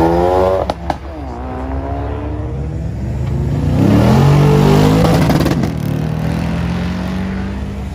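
A Ford Focus RS's turbo four-cylinder revs up as it passes, with two sharp exhaust bangs just under a second in. Then a Lexus IS F's V8 accelerates hard, its note climbing to the loudest point about four to five seconds in before easing off as it pulls away.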